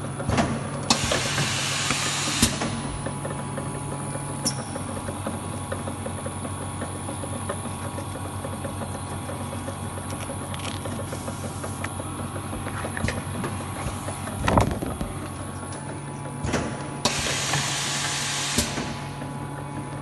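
Laminating and foiling machine running with a steady low hum, which drops away about four seconds in and returns near the end. Two bursts of hissing, about a second in and again near the end, with a few sharp clicks and a knock about halfway through.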